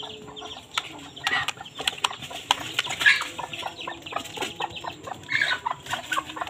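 Birds clucking in short calls a few times, over small clicks and rustling.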